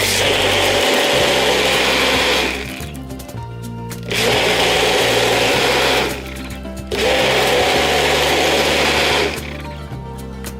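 A small electric motor runs in three bursts of about two seconds each, stopping between them, over background music.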